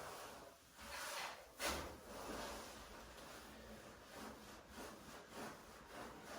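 Faint rubbing and shuffling of a body and clothing moving on a chiropractic treatment table, with one sharper knock about one and a half seconds in.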